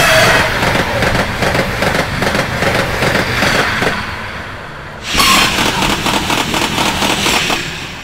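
A train passing at speed, its wheels rumbling and clattering on the rails. It comes in suddenly, eases for a moment about halfway through, swells again, then fades near the end.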